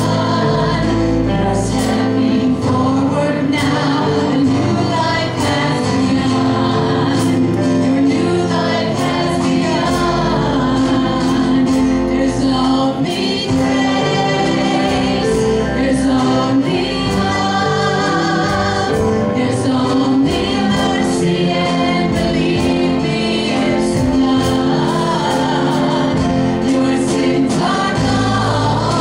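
A live worship band playing a Christian song: a small group of male and female singers over guitars, keyboard and drums.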